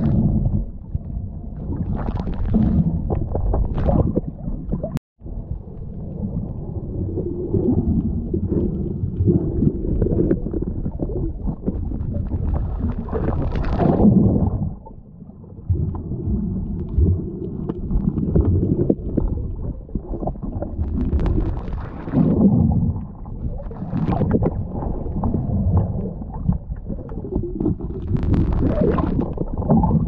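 Muffled underwater noise picked up by a submerged camera: a steady low rumble and gurgling, rising now and then into louder bubbling surges. The sound cuts out completely for a split second about five seconds in.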